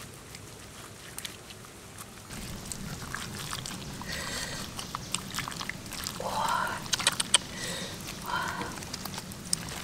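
Hands squishing and smacking a wet spice paste into a large raw catfish, with sharp wet clicks and slaps that grow busier from about two seconds in. Two short calls sound over it, about six and eight seconds in.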